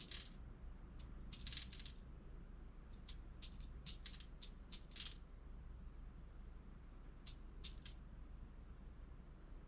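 Scattered light clicks and short rattles of small hard reloading components being handled on a bench, with a longer rattle about a second and a half in.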